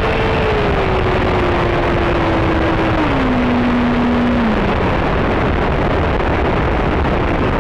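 An electric ducted-fan jet running loud, a steady rush of air with a whine. Over the first five seconds the whine drops in pitch in a few steps and then fades, as the throttle is pulled back.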